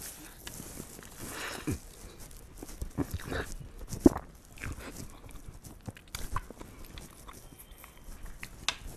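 Close-up mouth sounds of a man eating sauced chicken with his fingers: chewing, lip smacks and finger-licking. Scattered short wet clicks, the sharpest about four seconds in.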